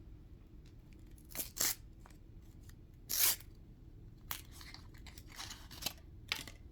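Hands handling a wet wipe and its plastic wrapper to clean a phone screen: a series of short rustles and scratches, the loudest about three seconds in.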